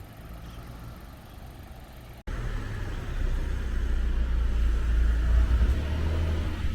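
Car driving, a steady low rumble of engine and road noise. It breaks off abruptly about two seconds in, then picks up louder.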